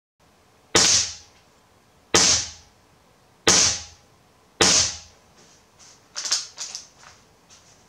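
Moderated .22 PCP air rifle (AGOS Short 8) firing four shots about 1.3 seconds apart. Each shot is a sharp crack with a brief ring-out, and a few quieter clicks follow.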